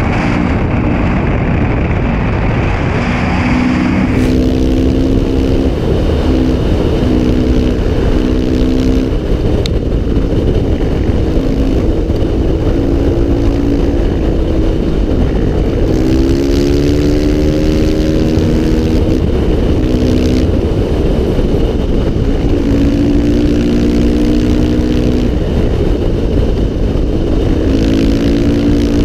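Dirt-bike engine running hard under acceleration, its pitch climbing and breaking off several times as it shifts gears. Heavy wind rumble on the helmet-mounted microphone.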